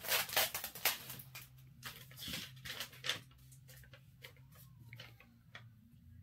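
Paper rustling and crinkling as an envelope and a folded note are handled and opened: a quick run of crackles that thins to a few scattered ticks after about three seconds.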